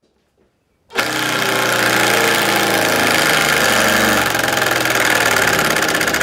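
Makita BTD142 18-volt cordless impact driver hammering a hex bolt into a double 2x8 plank, starting suddenly about a second in with a loud, fast rattle of impacts. The battery is nearly drained.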